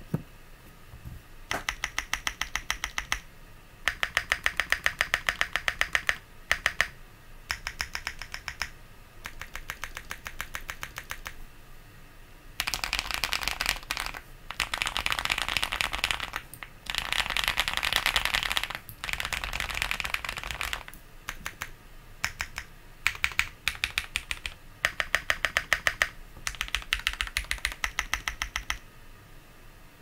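Fast typing on an Owlabs Link65 mechanical keyboard with lubed Durock T1 Sunflower tactile switches on an aluminium plate with PCB foam and JTK Night Sakura keycaps. The keystrokes come in quick runs of a few seconds each, with short pauses between, and stop about a second before the end.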